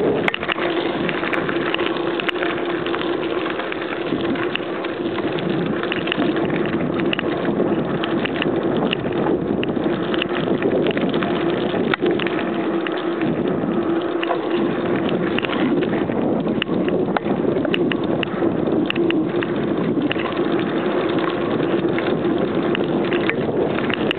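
Bicycle rolling along a dirt path strewn with dry leaves: steady tyre noise with many small clicks and rattles, and a steady hum underneath.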